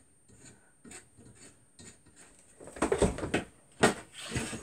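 Hand tools and a metal aluminium extrusion rail being handled on a desk: light rustling and small clicks, then a burst of rattling clatter about three seconds in, a single sharp knock, and a brief scrape.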